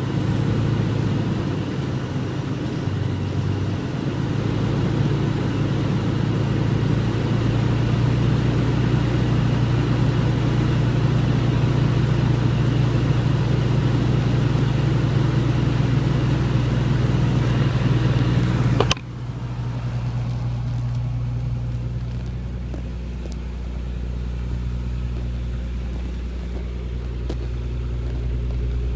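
Nissan 300ZX Twin Turbo's twin-turbo V6 running at a steady speed. About two-thirds in the sound cuts abruptly with a click to a quieter, lower engine note.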